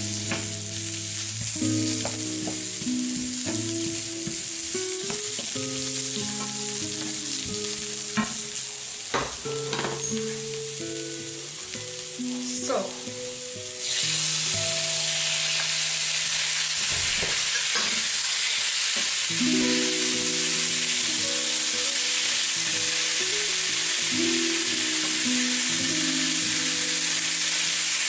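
Sliced onions sizzling in a little coconut oil in a nonstick pan while a wooden spoon stirs them, with a few knocks of the spoon. About halfway through, raw chicken breast pieces go into the pan and the sizzle turns suddenly louder and stays steady. Soft background music plays underneath.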